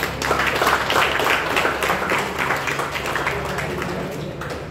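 A small crowd clapping, strongest in the first second or two and thinning out toward the end.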